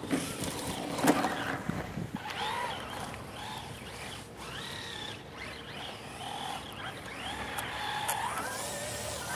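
Traxxas Rally VXL's brushless electric motor whining, its pitch rising and falling again and again as the throttle is worked while the RC car drives and slides through snow. A sharp knock about a second in.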